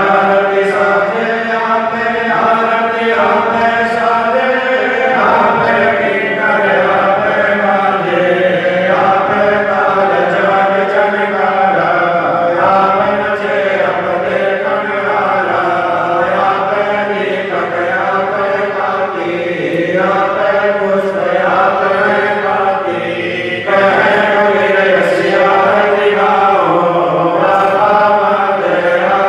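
Devotional chanting of an aarti: voices chanting a continuous, melodic line over a steady low tone.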